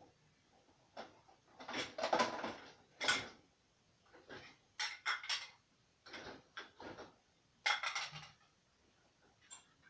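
Dishes and cutlery clinking and clattering as they are handled at an open dishwasher's racks: irregular clusters of sharp knocks and clinks, loudest about two to three seconds in.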